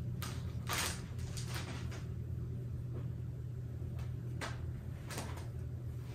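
Clear plastic parts bag crinkling in several short rustles as small plastic pieces are handled and taken out, with a couple of light clicks as pieces are set down; a steady low hum runs underneath.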